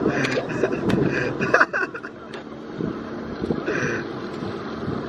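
Men laughing and chuckling, with wind rumbling on the microphone.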